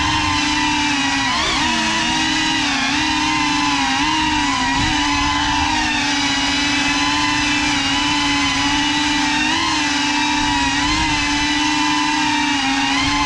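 Motors and propellers of a Cinelog35 ducted FPV quadcopter whining steadily in flight, the pitch dipping and rising briefly with throttle changes about a second and a half in, around five seconds, and near the end.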